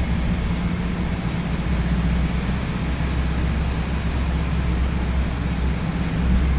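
Inside a moving minibus: the engine's steady low drone with road and tyre noise.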